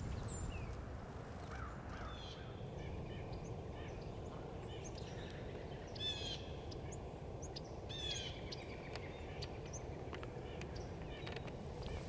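Wild birds calling: scattered short chirps and whistles, with two louder trilled phrases about six and eight seconds in, over a low steady rumble of outdoor background noise.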